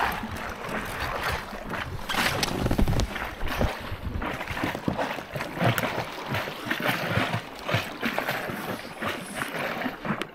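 Wind buffeting the microphone and water lapping around a kayak, with short crunching clicks as a chunk of glacier ice is bitten and chewed.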